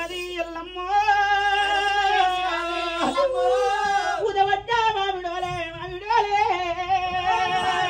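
One voice singing an Oggu Katha ballad in Telugu through a microphone and loudspeakers, in long held notes that bend and waver, broken by short breaths.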